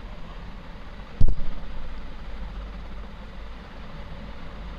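Steady low rumble and hiss of minced mutton, onions and tomatoes frying in an aluminium pot on a gas stove, with one sharp knock a little over a second in as the stirring spatula strikes the pot.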